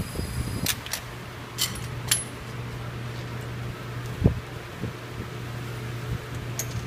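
A few sharp metal clicks and a knock from a wrench on the crankshaft bolt of a Subaru SOHC EJ flat-four as the engine is turned over by hand, bringing the next cylinder up for its leakdown test. A steady low hum runs underneath.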